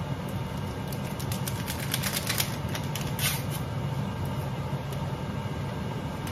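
A small paper sachet of baking powder being torn open and handled: a run of crisp rustles and ticks, loudest about two and a half and three and a quarter seconds in, over a steady low hum.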